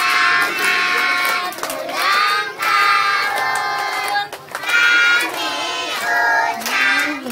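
A group of children singing together in chorus, in phrases a second or two long, with hands clapping along to the beat.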